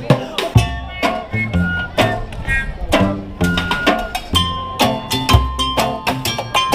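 Street band playing lively, percussion-heavy music on instruments made from recycled objects: fast drum beats and struck metal pans, with a few held notes over the top in the second half.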